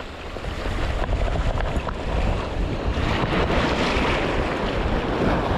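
Small sea waves washing over shoreline rocks, with light wind buffeting the microphone.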